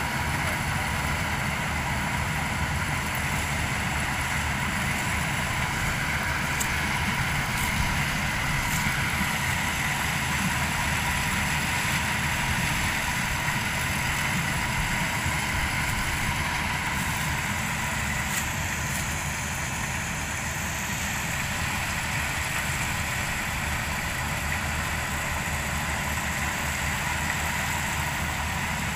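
Tracked combine harvester running steadily while cutting corn: a continuous engine drone with a steady high whine from the machine.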